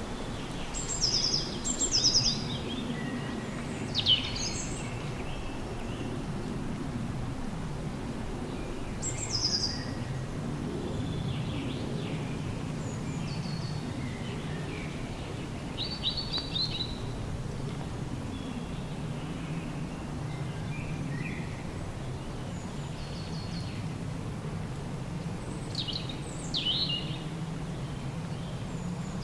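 Several songbirds singing short, high, separate phrases every few seconds, over a steady low background rumble.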